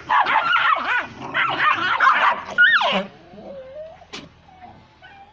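Dogs barking and yipping excitedly in a dense, high-pitched flurry for about three seconds, then dying down to a single falling whine. A sharp click comes about four seconds in.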